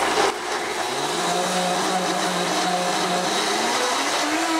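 Blendtec blender running at high speed with a jar of water, a steady motor whir over churning water. Near the end the motor tone rises in pitch.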